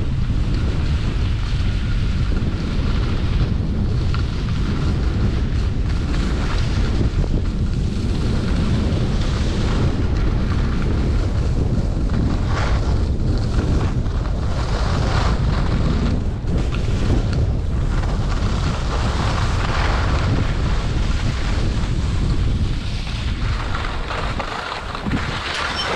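Wind buffeting the microphone during a ski run, a loud steady rumble, with skis hissing and scraping over packed snow. It eases slightly near the end as the skier slows.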